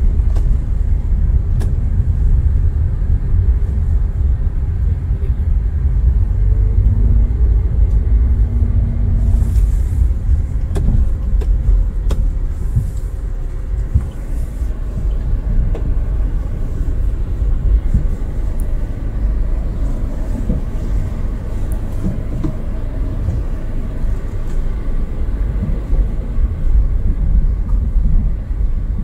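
Car driving slowly over a rough, broken road, heard from inside the cabin: a steady low rumble of engine and tyres with scattered knocks and clicks from bumps and loose stones.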